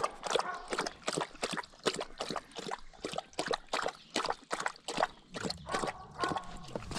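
Livestock guardian dog lapping water steadily, about three to four laps a second, a sign of a very thirsty dog.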